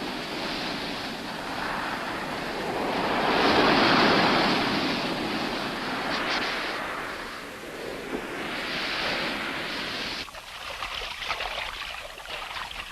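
Sea surf washing onto a beach: a noisy rush that swells and falls back twice, loudest about four seconds in. About ten seconds in it thins to a lighter, crackling wash.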